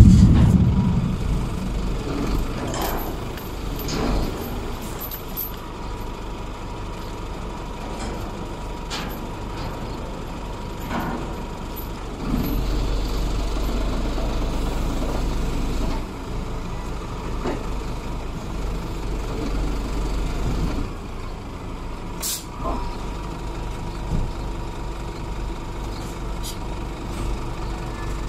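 Skip loader truck's diesel engine running, with metal chains knocking against a steel skip at intervals as they are hooked to the lifting arms. A loud metallic bang right at the start, the engine running louder for several seconds midway, and one short hiss of air about three-quarters of the way through.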